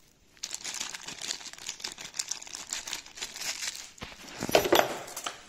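Packaging crinkling and rustling as a door handle set is unpacked from its cardboard box, with a few louder rustles near the end.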